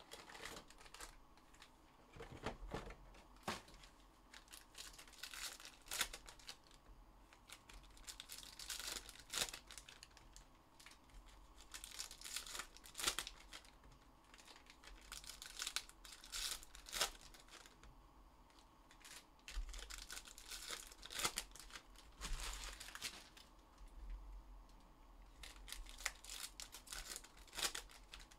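Sealed trading card packs being torn open, with their plastic wrappers crinkling and rustling in irregular bursts.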